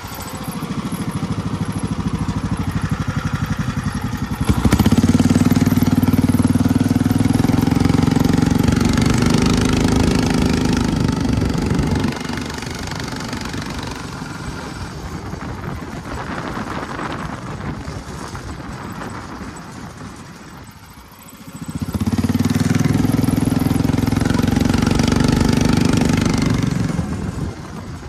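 Predator 459 single-cylinder engine of a crosskart buggy running under way through its CVT torque converter. It goes loud twice, from about five seconds in for some seven seconds and again from about 22 seconds in for five, dropping back to a lower, quieter running between.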